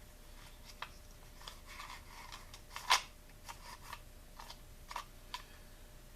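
Faint, scattered clicks and taps of chainsaw recoil-starter parts being handled during a pull-cord repair, with one sharper click about three seconds in.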